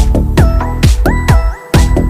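Electronic dance music with a steady, heavy beat and sliding synthesizer lines.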